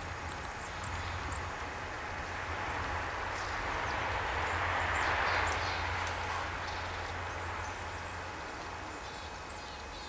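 Distant traffic noise that swells to a peak about five seconds in and then fades, over a steady low rumble, with a few faint high chirps of small birds.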